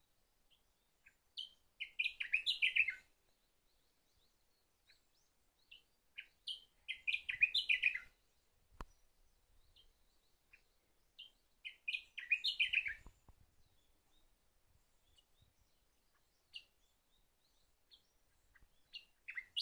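Sakhalin grasshopper warbler singing its short song phrase about every five seconds, four times, each phrase led in by a few soft single notes.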